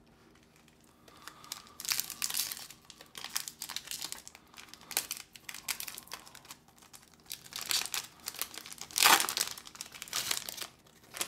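Pokémon booster pack wrapper crinkling and tearing as it is opened by hand, in a series of irregular bursts, the loudest about nine seconds in.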